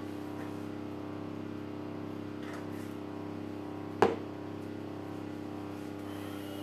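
Steady electrical hum with several even tones, and a single sharp knock about four seconds in as a utensil or object is handled on the kitchen worktop.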